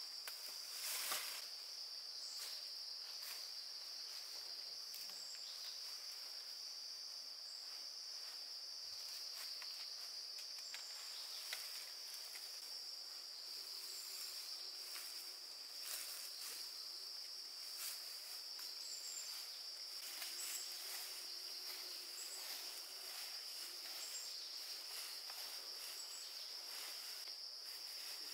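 Steady, unbroken high-pitched insect chorus, typical of crickets or cicadas, with occasional light clicks and rustles, one louder about a second in.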